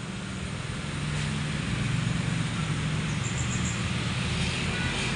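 A low, steady motor hum under some background noise, growing louder over the first two seconds and then holding.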